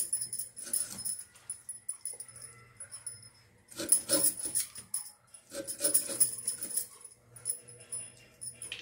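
A curved knife scraping and cutting the peel off a grapefruit in short rough bursts, strongest about four and six seconds in, with the metal bangles on the working wrist jingling as the hands move.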